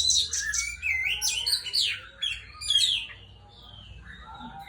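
Oriental magpie-robin singing a lively, varied song of quick sweeping whistles and chattering notes, loudest over the first three seconds and then softer.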